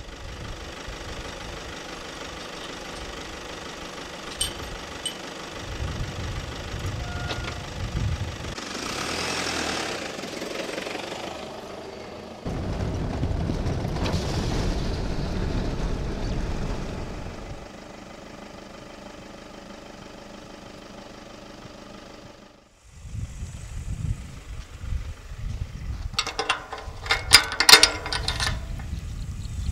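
A vehicle running, with wind and rumble, in several stretches that change suddenly at cuts. A burst of rattling clatter comes near the end.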